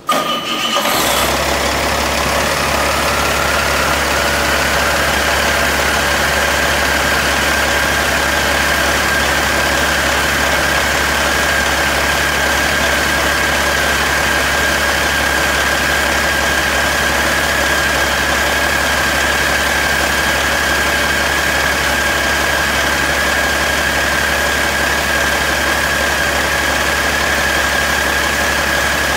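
1998 Caterpillar C12 inline-six diesel engine starting and settling into a steady idle. A high whine rises a little over the first few seconds and then holds steady over the engine's even running.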